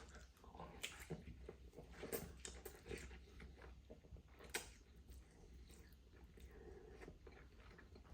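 A person chewing a mouthful of Buldak fire noodles: faint wet mouth clicks and soft chewing, irregular, with the clearest clicks in the first five seconds.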